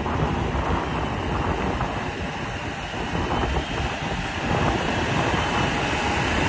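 CLAAS Xerion 12.590 tracked tractor, with its 15.6 L Mercedes-Benz engine, working under load as it pulls a Horsch Tiger cultivator through the soil. A steady heavy rumble of engine and tracks, growing louder toward the end as it nears.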